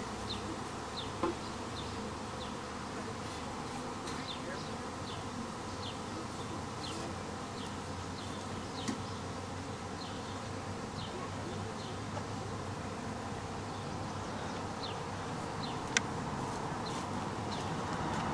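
Steady buzzing hum of a honeybee swarm, many bees flying close by, with short high chirps over it and a few sharp clicks, the loudest about 16 seconds in.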